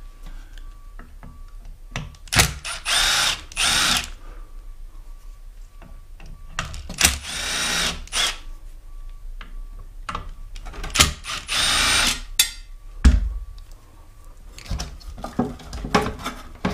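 Cordless drill-driver running in several short bursts of about half a second to a second each, undoing screws on a mobility scooter. There is a heavy thump about two thirds of the way through, and loose knocks and rattles near the end.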